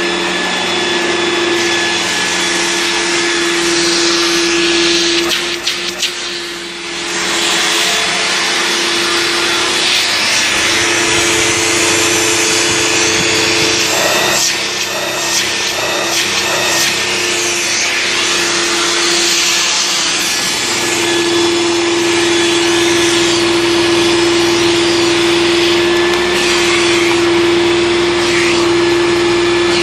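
1992 Hoover Turbopower 2 upright vacuum cleaner running, its motor holding a steady whine over the rush of air. The sound briefly dips about six to seven seconds in, then carries on.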